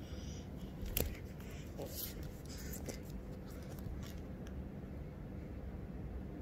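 Knocks and rustling of a phone being handled and propped up, with the sharpest knock about a second in, then a steady low background hum.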